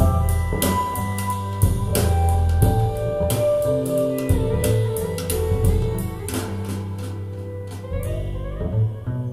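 Instrumental music with a drum beat, a bass line and held melodic notes. The drum hits thin out over the last few seconds.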